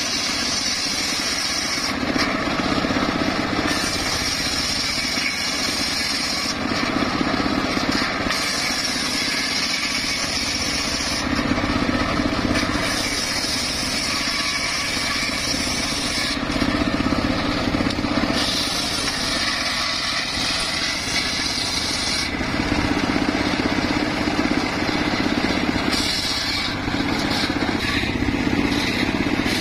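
Homemade circular saw rig running with a large blade cutting teak planks. Its machine drone is steady, and a high cutting hiss rises and falls in passes every few seconds.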